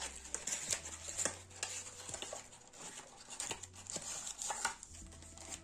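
Crinkling and rustling of foil trading-card packets being handled and torn open, with small scattered crackles and taps of cards.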